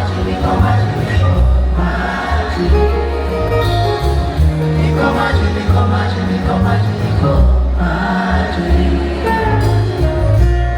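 Loud live music with a heavy bass line and several voices singing together, as from a concert stage and a crowd singing along.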